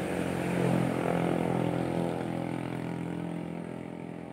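Steady droning hum of an engine, loudest in the first couple of seconds and fading away toward the end.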